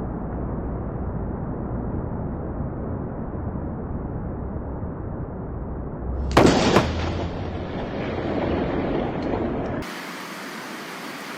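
A close lightning strike: a steady low rushing noise, then about six seconds in a sudden, loud double crack of thunder followed by a fading rumble. About ten seconds in the sound cuts abruptly to a thinner, quieter hiss.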